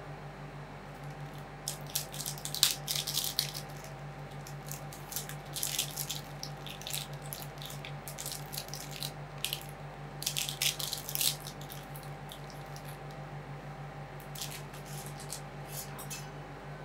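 Steady low hum of a running ice cream roll cold-plate machine, broken four times by clusters of crisp, high-pitched crackling from hands and ingredients being worked on or near the plate.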